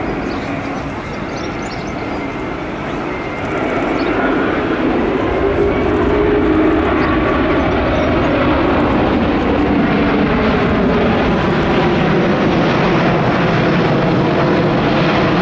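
Airbus A350 XWB's two Rolls-Royce Trent XWB turbofan engines during a low display pass, a steady jet noise that grows louder about three and a half seconds in and stays loud, with a low whine shifting in pitch as the airliner passes overhead.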